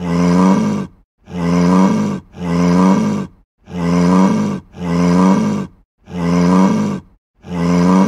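A sick cow mooing: a run of about seven short, low moos, each about a second long, repeated one after another with brief gaps, all alike in pitch and shape.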